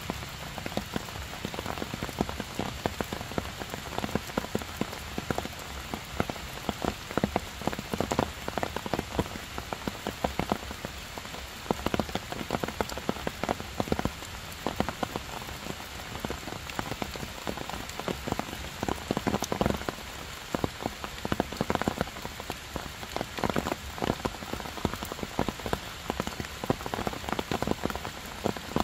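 Heavy rain falling steadily on stone and leaves, with many sharp drop taps close by.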